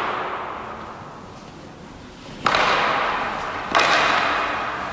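Two loud bangs from construction work, about two and a half and three and a half seconds in, each ringing out in the long echo of a large, empty hall. The echo of an earlier bang is dying away at the start.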